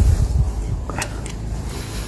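A small metal hand tool scraping and digging in loose soil, with a couple of short scrapes about a second in, over a steady low rumble on the microphone.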